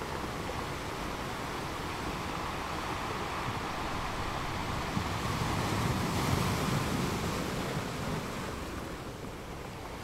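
Hand-held heat gun blowing hot air over wet resin in a silicone mold, its fan and airflow making a steady rushing noise. It swells a little around six seconds in. The air pushes the poured white resin into lacy surf.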